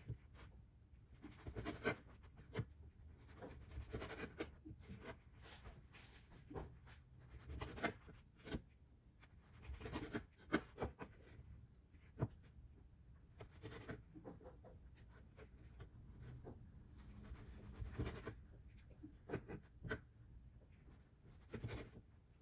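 Slices of soft white bread being handled and their crusts cut off with a knife on a plastic cutting board: soft scraping and rustling with irregular taps and knocks of bread and blade on the board.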